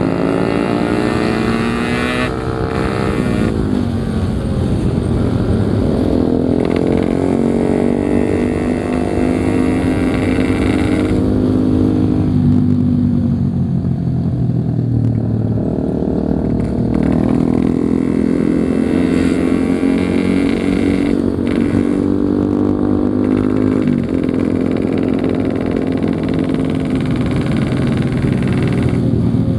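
Yamaha RX-King's 135 cc two-stroke single-cylinder engine running under way, its pitch repeatedly climbing as it accelerates and then falling away.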